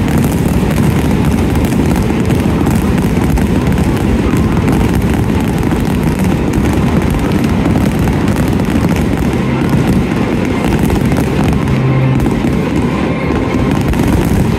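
Aerial fireworks display going off in rapid, continuous succession: many overlapping bangs and crackles with a heavy low rumble and no pause.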